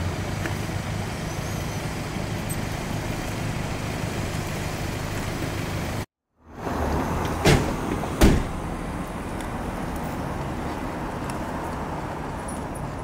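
Vehicle engine idling steadily, with a brief break partway through. Two sharp knocks come close together about a second and a half after the break.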